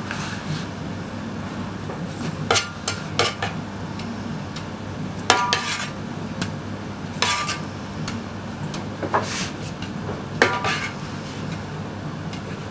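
Metal skimmer scraping through rice and clinking against the side of a large steel pilaf kazan as the rice is stirred and spread. About seven sharp, ringing clinks stand out over a steady low hum.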